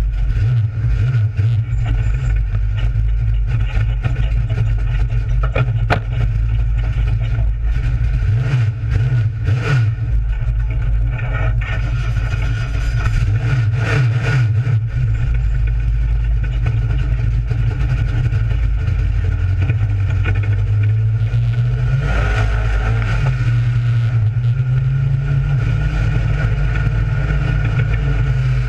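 Dirt-track race car's engine running, heard from inside the cockpit, uneven at first and then climbing in pitch about three-quarters of the way through as the car speeds up. A few sharp knocks come in the first half.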